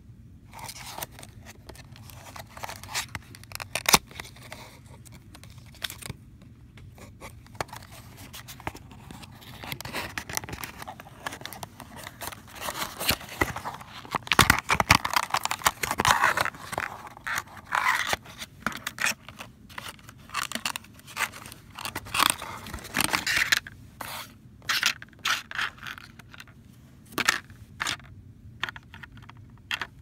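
Cardboard box and clear plastic packaging being handled: scraping, rustling and clicking as the box is opened and a plastic blister tray is slid out, busiest through the middle.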